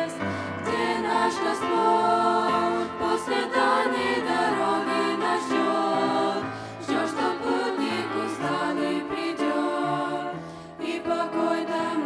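A teenage girls' vocal group singing a Christian song together through handheld microphones, over an accompaniment of held low notes, with a brief break between phrases near the end.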